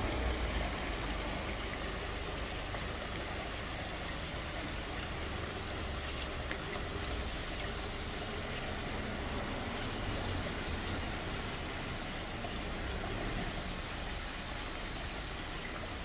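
Three-stage rock waterfall splashing steadily into a koi pond, an even rush of falling water. A short high chirp repeats roughly every one and a half seconds over it.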